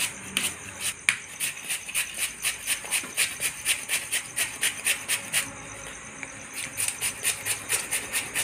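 Peeled raw potato rubbed in long strokes over the coarsest side of a stainless steel grater, a quick rasping scrape about four times a second, pausing for about a second midway before starting again.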